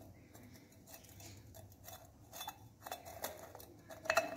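Light metallic clicks and scrapes as a motorcycle piston's rings are squeezed by fingers and eased into the cylinder bore, with a few louder clicks near the end.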